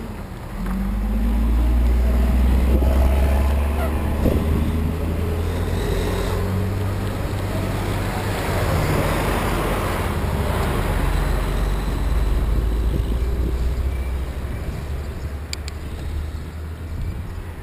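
Wind buffeting a handlebar-mounted camera's microphone on a moving bicycle, a steady low rumble mixed with road noise. About halfway through, a passing vehicle's tyre noise swells and fades.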